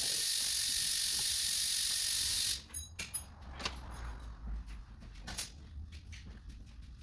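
A steady hiss that cuts off suddenly about two and a half seconds in, followed by scattered light clicks and taps.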